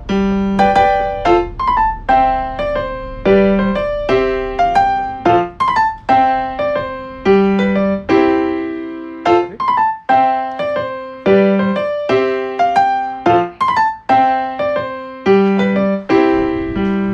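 Background music: a light, bouncy tune of short struck keyboard notes that fade quickly, with a low bass note repeating about every two seconds.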